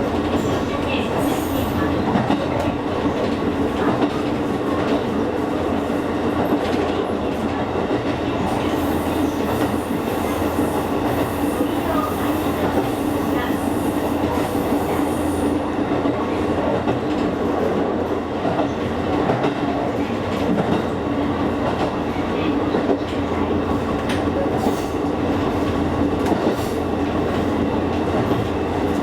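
Electric train running steadily at speed, heard from inside the carriage: a continuous rumble with a steady hum, and scattered clicks from the wheels over the rails.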